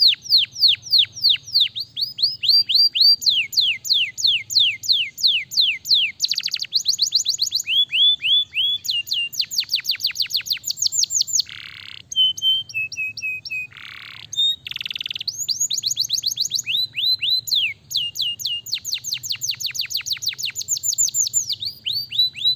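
Domestic canary singing a long song of fast trills, each a run of rapidly repeated falling-pitch notes, switching to a new note type every second or two, with a few harsh, raspy notes about halfway through.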